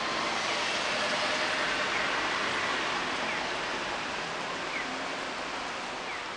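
Road traffic: a steady hiss of cars passing on the street below, slowly fading.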